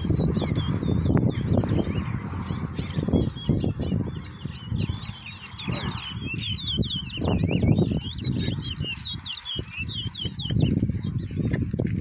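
Caged towa-towa (chestnut-bellied seed finch) singing in a song race: a rapid, continuous run of high whistled notes and trills, over a loud, uneven low rumble.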